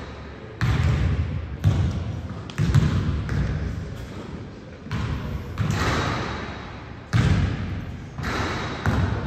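A basketball being dribbled on a gym floor: about eight bounces, roughly one a second and unevenly spaced, each with a long echo in the hall.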